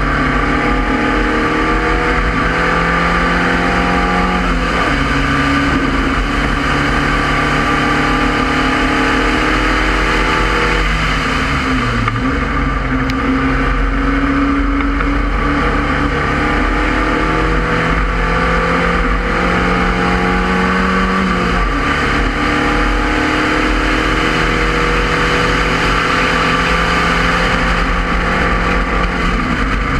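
Spec Racer Ford Gen 2's four-cylinder engine at racing speed, heard onboard. The revs climb steadily and drop at gear changes about four seconds in, near twenty-one seconds and near the end, with a deeper fall about eleven to twelve seconds in as the car slows for a corner. A steady rush of wind and road noise runs under it.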